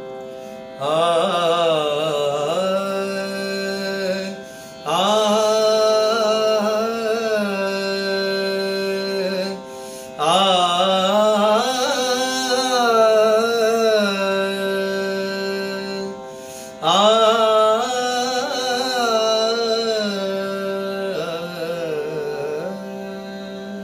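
A man singing Haveli Sangeet, the raga-based devotional temple music of the Pushtimarg tradition, in four long ornamented phrases, each opening loud and trailing off, over a steady drone from an electronic drone box.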